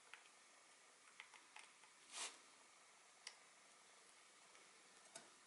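Near silence broken by a few faint light clicks and ticks of small parts and tools being handled, with a brief soft rush about two seconds in.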